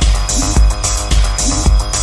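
Electronic club music from a DJ set: a steady groove with deep bass hits about twice a second and hissy, high-pitched percussion on top.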